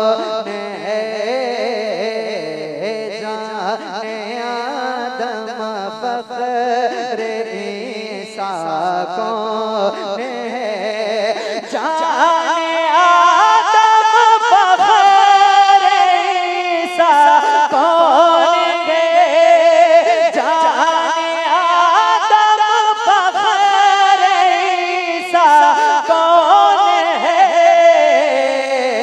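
A man singing a naat solo into a microphone, in long melismatic held notes. About twelve seconds in, his voice climbs higher and grows louder.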